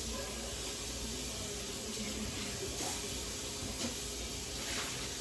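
Tap water running steadily at a kitchen sink while a frying pan is washed under it.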